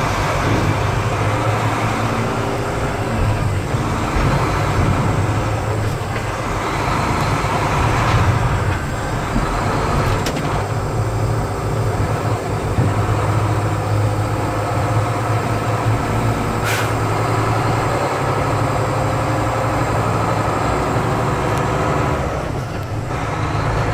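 Big truck's engine running and road noise as it drives off the ferry ramp, heard from inside the cab, with a steady low hum. A brief sharp hiss cuts in about seventeen seconds in.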